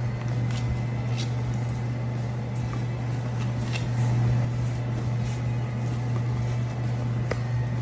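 A steady low hum, even in level, with faint scattered clicks over it.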